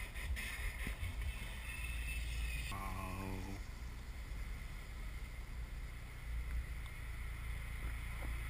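Steady wind rush and low road and engine rumble in an open-top convertible driving in traffic, with wind noise on the microphone. A short pitched tone sounds briefly about three seconds in.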